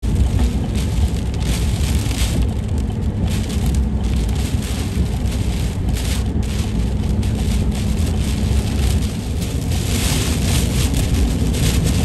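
Hurricane rain and wind pelting a moving car, heard from inside the cabin: a dense crackle of rain on the windshield and body over a deep rumble of wind and tyres on the flooded road, growing heavier near the end.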